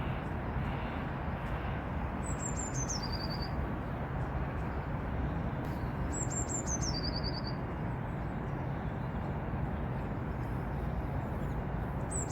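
A songbird singing: each phrase is a run of high notes stepping downward and ending in a short rapid trill, heard twice about four seconds apart, with another phrase beginning at the end. Steady background noise underneath.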